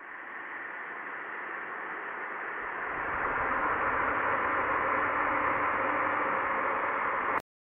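Horror sound effect of a static-like hiss that swells louder over the first few seconds, holds steady, then cuts off suddenly near the end.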